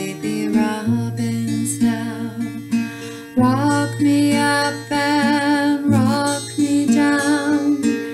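A woman singing a slow lullaby in long held notes, with a slight waver in the voice, to her own acoustic guitar playing.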